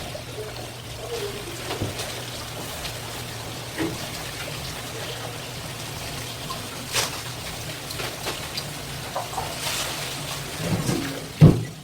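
Water running and trickling steadily, with scattered light clicks and knocks and one louder thump near the end.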